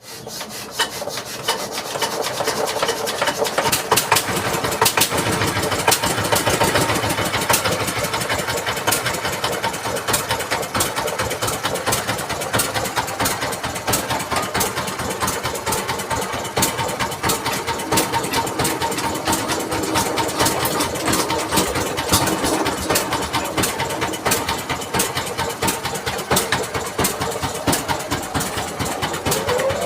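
Dongfeng 24 hp single-cylinder diesel engine running steadily with a rapid, even knocking beat, coming up to full loudness within the first second.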